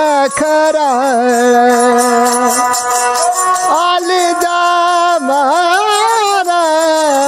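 A man singing a Rajasthani folk song to his own ravanhatha, the bowed Rajasthani folk fiddle, with long held notes that slide and waver between pitches.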